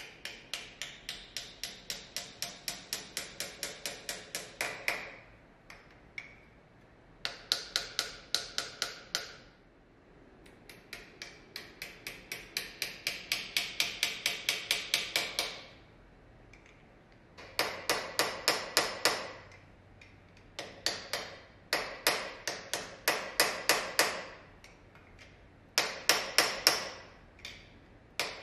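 Small hammer tapping brass pins into the wooden head and lever of a cam clamp: quick runs of light, sharp taps, about five a second, in several bursts with short pauses between.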